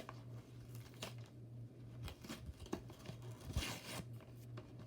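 Plastic Pokémon card packaging crinkling and tearing in short scratchy bursts as it is handled and pulled open, louder for a moment near the end, over a low steady hum.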